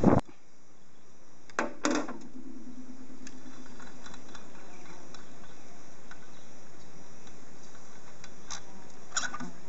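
Metal clinks from a wrench and an outboard motor's propeller being handled. Two sharp clinks come about a second and a half in, and the second rings on briefly. Two more clicks come near the end, over a faint steady background.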